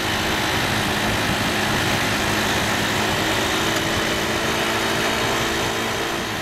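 Motorcycle engine running steadily at low speed under an even rush of wind.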